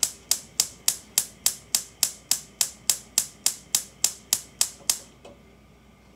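Gas stove burner's spark igniter clicking steadily, about three clicks a second, while the burner fails to light; the clicking stops about five seconds in.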